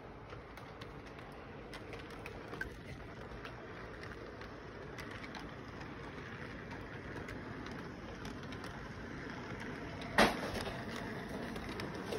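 Model intermodal train running on its track: a steady rolling rumble with light clicks, growing louder as the cars come near, and one sharp knock about ten seconds in.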